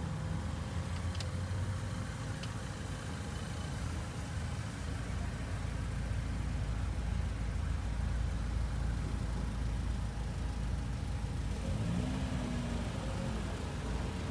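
Classic cars' engines running as the cars drive slowly past one after another, a steady low rumble that grows a little louder about halfway through.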